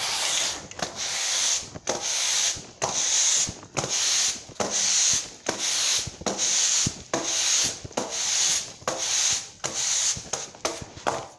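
A broom sweeping a concrete shop floor in steady strokes, about one scraping swish a second.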